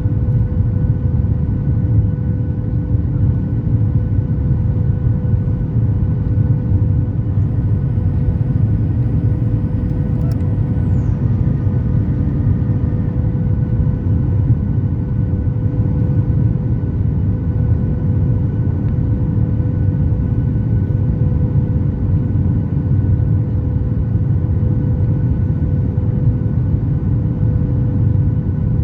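Steady cabin noise of a Boeing 737 MAX 8 airliner in flight: a loud, even low rumble of engines and airflow with a constant hum over it. A faint high whistle comes in about a third of the way through and drops away a few seconds later.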